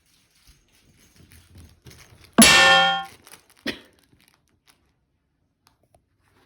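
A metal object struck once, giving a loud clang that rings and dies away over about half a second, followed about a second later by a lighter knock. Soft scuffling comes just before the clang.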